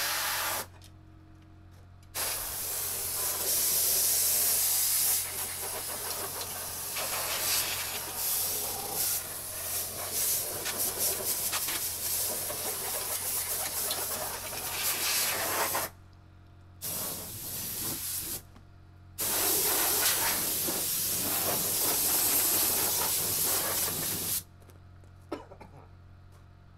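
Compressed-air blow gun hissing in blasts as it blows dust out of a Kubota KX040 mini excavator's radiators. There is a short blast at the start, then a long one of about fourteen seconds from about two seconds in, a brief one around seventeen seconds and another of about five seconds that stops near the end. A faint steady low hum sits underneath.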